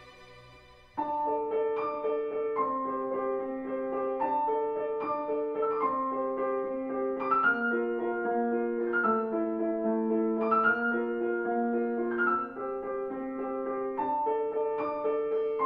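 Solo piano music: a slow melody over held chords that comes in suddenly about a second in, after a fading sustained tone.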